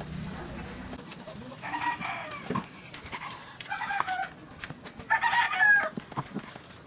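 Chickens calling: three short calls of under a second each, about two, four and five seconds in. Faint knocks of a knife cutting through a raw tuna loin onto a wooden cutting board run between them.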